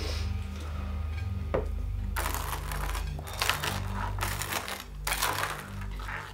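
Table knife scraping butter across toast, in a run of short rasping strokes from about two seconds in.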